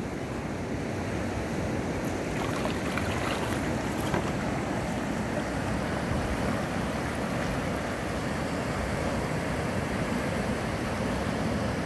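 Fast river water rushing and rippling steadily, with wind buffeting the microphone and a few kayak paddle strokes splashing.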